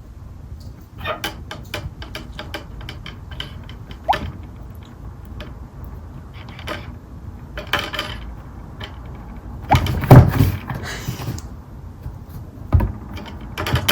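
A kitten knocking small objects about: a run of light clicks and taps, with a louder clattering thump about ten seconds in.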